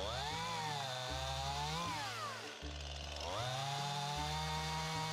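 Stihl MS171 two-stroke chainsaw revving up and holding, easing off about two seconds in, then revving up again, over music with a stepping bass line.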